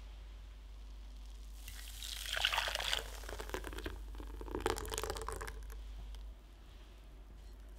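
Thin, uncooked custard mixture poured from a glass bowl into a metal saucepan, its stream splashing and dripping into the pan. The pouring is loudest in two spells, about two seconds in and again about four and a half seconds in.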